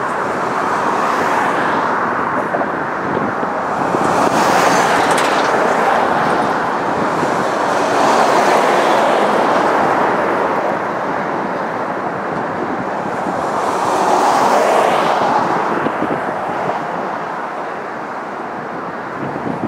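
Road traffic going past: a steady rush of tyre and engine noise that swells and fades as vehicles pass, loudest about four, eight and fourteen seconds in.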